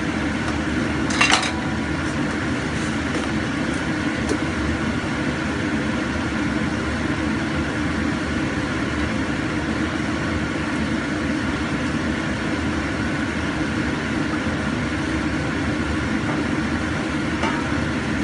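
A metal spoon clinks sharply against a stainless-steel bowl about a second in, with a few fainter clinks later, while cornstarch slurry is being mixed. A steady low rumble runs underneath throughout.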